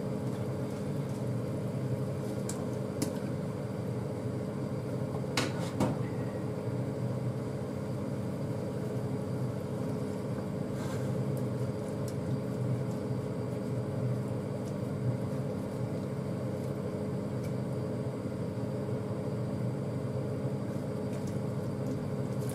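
Steady hum of a running kitchen appliance, holding a few fixed pitches. Over it come a few light clicks and knocks as chunks of potato and chopsticks strike a stainless saucepan, the loudest about five to six seconds in.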